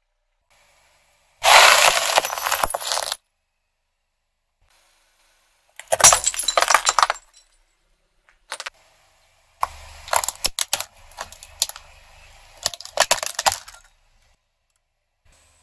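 Brittle plastic and ceramic household items cracking and shattering under a car tyre, in three separate bursts with silent gaps between them. The last burst is a string of sharp cracks over a low rumble.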